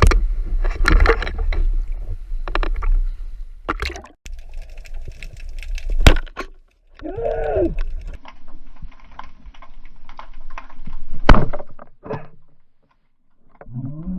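Underwater camera audio from a spearfishing dive: water rumbling and swishing, broken by sharp clicks and knocks, two of them much louder than the rest. About seven seconds in comes a short groan that rises and falls in pitch.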